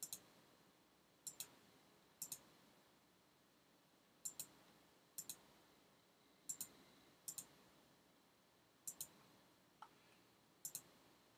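Computer mouse buttons clicking about ten times, each click a quick double tick, spaced roughly a second apart, as areas of a drawing are selected and filled in a graphics program.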